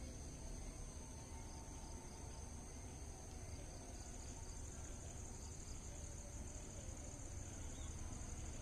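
Insects chirring steadily in a high, thin tone, with a pulsing trill joining about four seconds in, over a low rumble.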